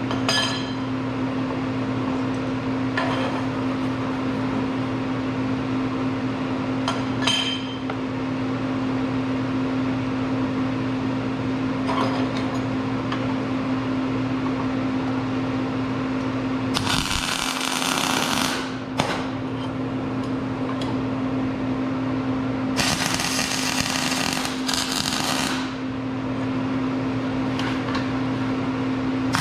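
Two tack welds, each a crackling arc of two to three seconds, the second starting about five seconds after the first. A steady electrical hum runs under them, and a few clinks of steel parts being handled come before the welding.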